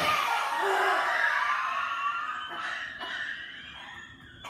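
A woman's forceful open-mouthed breathy roar, the lion's-breath exhalation of yoga (here called the 'silent scream'). It starts suddenly and loud, then trails off over about four seconds.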